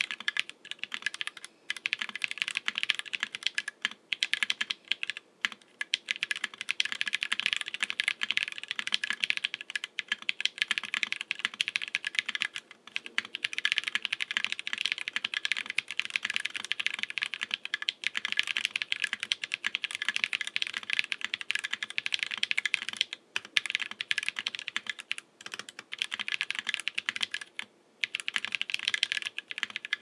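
Fast, steady typing on a custom 60% mechanical keyboard: Holy Panda tactile switches lubed with Tribosys 3204, in a black aluminum KBDfans Tofu60 case with ePBT keycaps. A dense run of keystroke clacks with a few brief pauses, a sound the builder calls pretty good but a little hollow.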